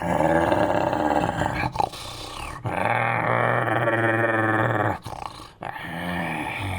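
Made-up creature calls, built from a person's voice mixed with wolf and badger sounds: three calls, the middle one long and held at a steady low pitch for about two seconds.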